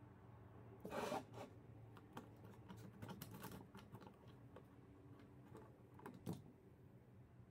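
Small clicks and scrapes of metal parts being handled: a bolted steel clamp band being fitted around an angle grinder's spindle head. A short scraping rustle about a second in is the loudest sound, followed by scattered light clicks and one sharper click near the end.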